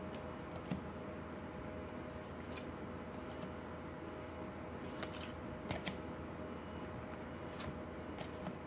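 Tarot cards being handled and turned over one at a time: scattered light clicks and snaps of card against card over a steady low background hum.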